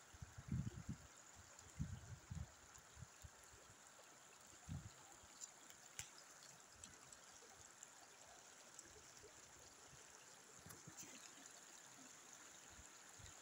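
Faint, near-silent beach ambience: a steady soft hiss of shallow seawater running between rocks. There are a few low thumps in the first few seconds and a single sharp click about six seconds in.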